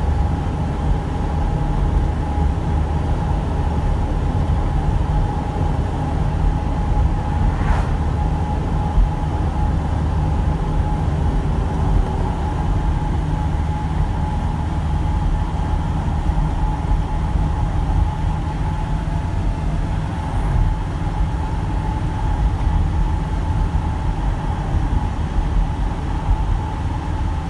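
A truck's engine and road noise heard from inside the cab while it drives along at a steady speed: an even low drone with a thin, constant tone over it.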